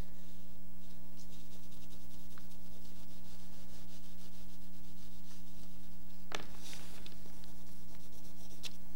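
Pastel stick rubbed lightly across paper, a soft scratching, over a steady low hum. Two sharper scrapes stand out near the end.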